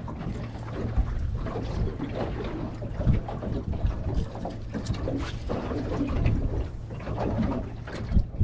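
Wind buffeting the microphone on a small fishing boat at sea, an uneven rumble with a few low thumps.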